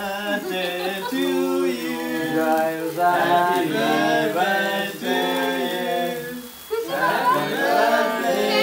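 A small group of voices singing a birthday song together, unaccompanied, in long held notes. The singing breaks off briefly about six and a half seconds in, then starts again.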